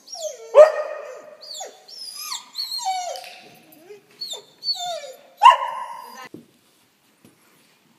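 Dog barking and yelping: two loud barks, about half a second in and about five and a half seconds in, with many short high-pitched yips and whines between them. It stops about a second before the end.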